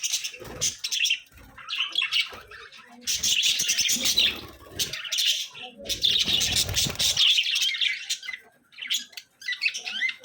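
Pet budgerigars chattering and warbling in busy bouts of high, rapid chirps that pause briefly now and then, with a few bursts of low rumbling noise underneath.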